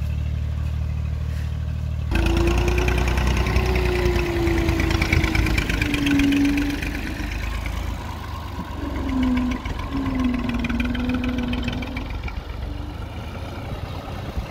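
Massey Ferguson 240 tractor's three-cylinder diesel engine running under heavy load while towing a fully loaded trolley. It starts as a steady low hum, and about two seconds in it turns abruptly louder and rougher, with a wavering whine.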